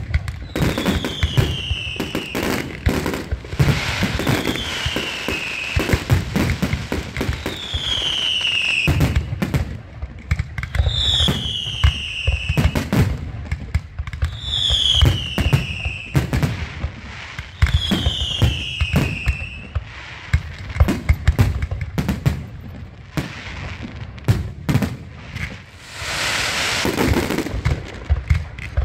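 Fireworks going off: a dense run of bangs and crackling firecrackers, with a falling whistle repeating about every three to four seconds for most of the stretch and a hissing burst near the end.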